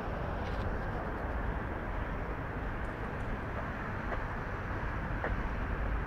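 Steady street noise with a low traffic rumble.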